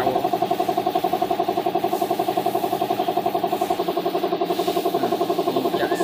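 A small engine running steadily at idle, with a fast, even pulsing beat.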